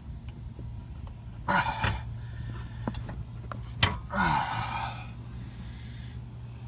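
A person's breathy gasps, each sliding down in pitch like a short groan, about a second and a half in and again near four seconds, with a sharp click between them, over a steady low hum.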